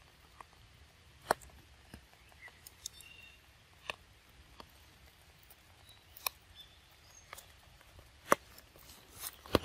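Quiet wet-forest ambience with scattered sharp ticks, one every second or two, and a couple of brief high chirps about three seconds in.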